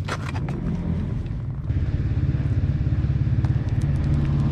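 A 450 four-stroke dirt bike engine running at low speed, with a few sharp clicks and clatter at the start. A little under two seconds in, the throttle opens and the engine settles into a louder, even pulsing beat.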